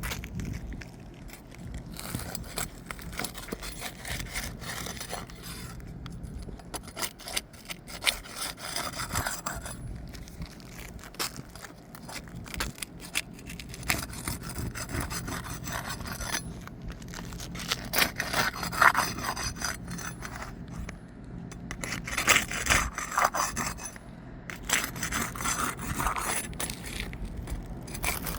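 Asphalt roof shingles being worked loose by hand: irregular scraping and rubbing with many sharp clicks and crackles, a few louder scrapes in the second half.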